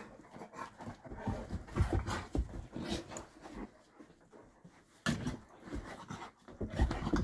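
Large mastiff-type dogs panting and moving about, with irregular soft thumps and rustles.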